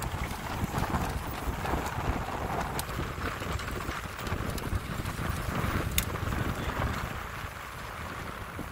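Wind rumbling on the microphone, with a light rhythmic clatter from a pedal-powered aircraft and its slowly turning propeller passing close by. Sharp clicks come at the start and again about six seconds in.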